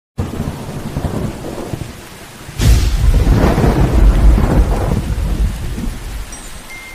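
Thunderstorm sound effect: steady rain, then a sharp thunderclap about two and a half seconds in that rolls into a long low rumble, fading over the last second or so.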